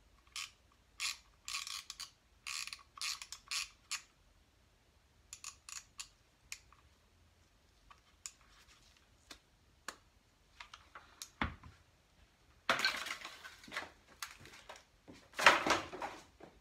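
Clicks and clatter of small hard objects being handled, in short clusters, then a dull thump and two longer scraping, rustling noises near the end, the second one the loudest.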